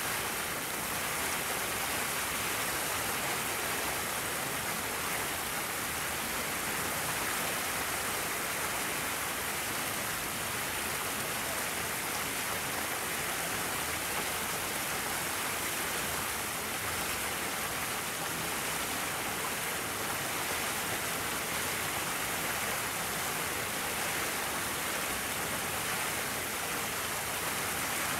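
Steady, even hiss of falling water.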